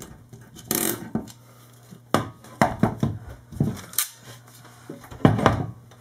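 Paladin Tools CrimpALL crimping tool clamping down on an RJ45 connector on CAT5e cable: a series of short plastic and metal clicks and knocks. The loudest knock comes near the end.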